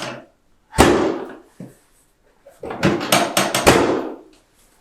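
Sharp knocking during chiropractic muscle work: one heavy knock about a second in that rings out briefly, then a rapid run of knocks, several a second, for about a second and a half.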